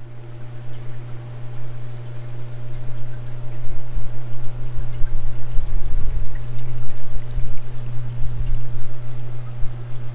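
Parts washer running: its pump hums steadily while cleaning fluid pours from the flexible nozzle over an engine block and splashes and trickles into the tub. The splashing gets louder about four seconds in.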